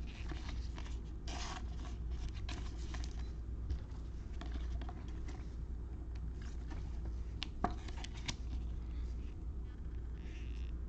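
Baseball cards being handled and slid past one another, giving scattered short rustles, scrapes and clicks of card stock over a low steady hum.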